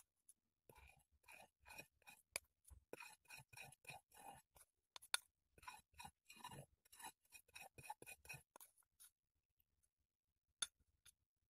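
Faint scraping of a spoon gathering leftover icing off a ceramic plate, in short repeated strokes about two a second, which stop a few seconds before the end; a single sharp click near the end.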